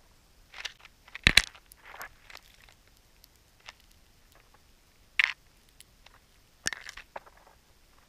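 Male northern cardinal pecking and cracking sunflower seeds right at the microphone: scattered sharp clicks and crunches, the loudest a double knock a little over a second in and another sharp one about five seconds in.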